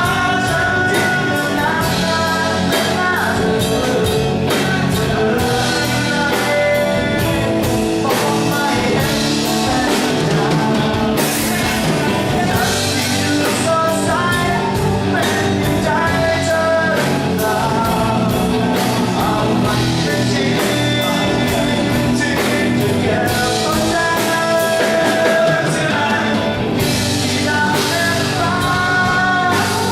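Live rock band playing a song: vocals over electric lead guitar, bass guitar and a drum kit.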